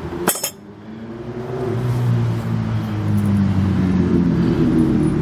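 A sharp click, then a steady low engine hum that grows louder over about a second and holds.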